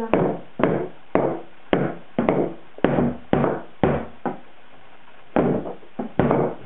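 Wooden-handled hammer driving nails into a wooden board: sharp blows about two a second, each with a short ringing tail. There is a pause of about a second about four seconds in, then the blows resume.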